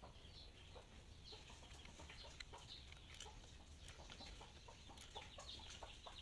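Faint bird calls, typical of chickens, with scattered small clicks over a steady low hum.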